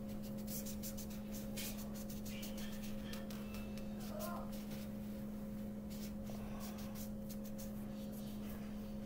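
Yellow coloured pencil scratching on paper in quick back-and-forth colouring strokes, in bursts, over a steady low hum.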